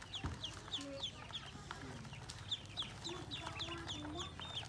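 Ducklings peeping: a busy run of short, high, falling peeps, several a second, with a few lower calls in between.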